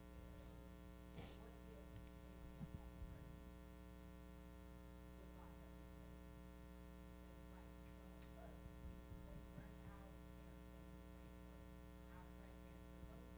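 Near silence: a steady electrical mains hum, with a few faint, brief room noises.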